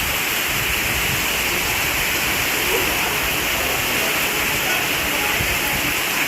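Heavy rain falling, a loud, steady hiss with no break.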